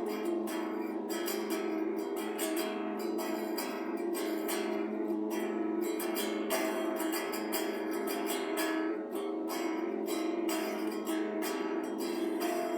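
Guitar strummed in a steady rhythm, an instrumental passage with no singing.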